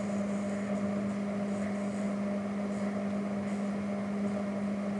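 A steady low hum with a faint hiss behind it.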